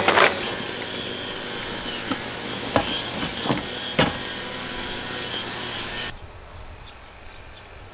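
A grass-cutting machine runs steadily in the background, with a few sharp clicks over it; about six seconds in, the machine noise drops suddenly to a much quieter background.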